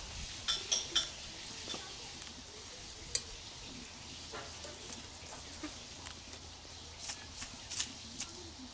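Light clicks and clinks of a plastic bottle and a small container being handled, in a cluster about half a second in, a single click around three seconds, and several more near the end.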